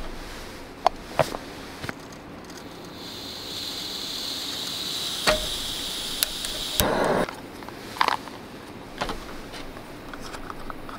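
Metal clicks and clinks as a Soto WindMaster camp stove is handled on its gas canister. A few seconds in, a steady hiss sets in for about four seconds and is cut off by a short, loud scuffing noise, followed by a couple more clicks.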